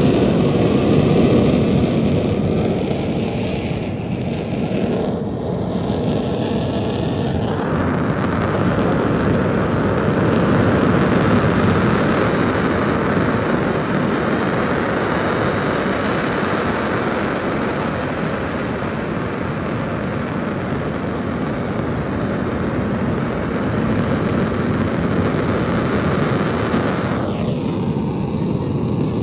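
Dukono volcano's vent degassing with a steady, jet-like rush of gas and ash, no separate blasts. It turns brighter and hissier about seven seconds in and dulls again near the end.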